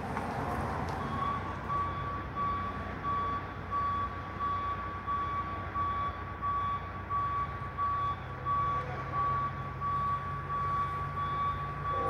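A construction machine's backup alarm beeping steadily, about one and a half beeps a second, starting about a second in, over the low, steady running of an engine.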